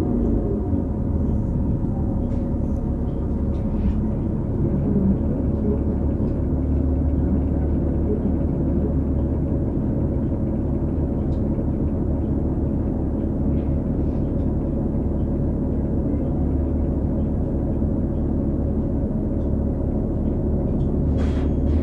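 2018 New Flyer XD40 transit bus under way, heard from inside: a steady low rumble from its Cummins L9 diesel and Allison B3400xFE transmission, with a steady whining tone on top that the owner puts down to odd-sounding transmission bearings. A falling whine right at the start, with a few light rattles.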